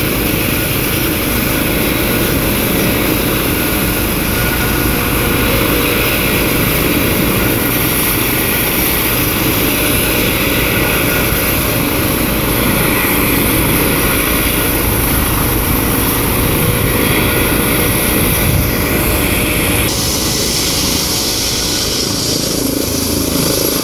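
Turbine helicopter with a ducted fenestron tail rotor running loud and steady on the ground, its main rotor turning before lift-off. The higher hiss grows stronger about twenty seconds in.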